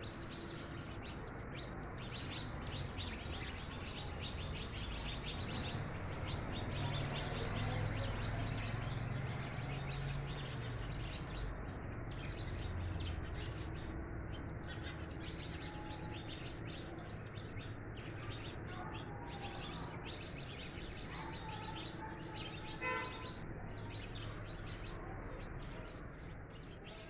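A flock of house sparrows chirping continually, many short chirps overlapping, over a steady low background rumble. A brief pitched tone sounds near the end.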